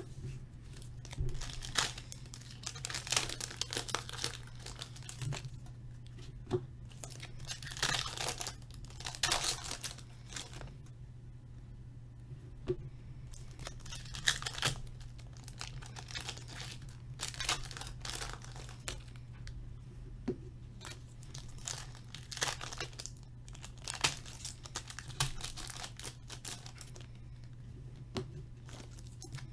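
Hockey card packs being torn open by hand, their foil wrappers ripping and crinkling in irregular bursts, with the cards handled in between. A steady low hum runs underneath.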